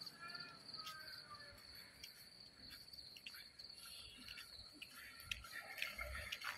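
Crickets chirring: a faint, steady, high pulsing trill.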